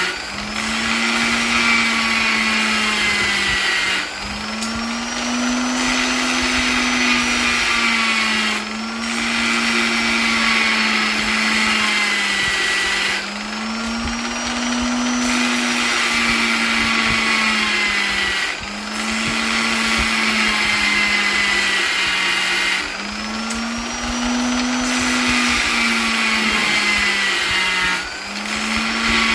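Electric polisher's motor running continuously, a steady hum and whine whose pitch slowly swells and sags, with a brief dip in level every four to five seconds.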